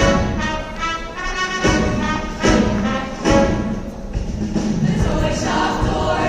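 Live Christmas concert music: an instrumental ensemble playing with a choir singing, with some drum hits.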